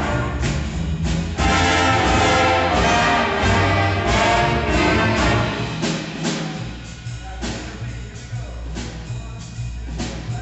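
Jazz big band playing a blues, with saxophones, trumpet and trombones loud over upright bass and piano. About six seconds in the band falls quieter, and the bass line carries on underneath.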